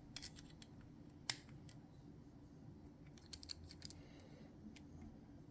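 Faint, scattered metallic clicks and taps of a screwdriver bit working at the brass casing of a lever lock, with one sharper click about a second in.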